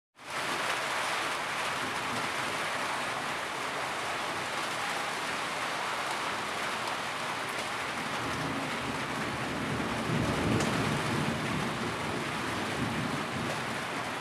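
Heavy rain falling steadily, fading in at the very start. A low rumble swells and fades about ten seconds in.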